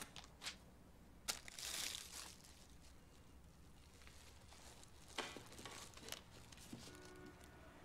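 Quiet room, with a brief faint crinkling rustle and a few light clicks and knocks.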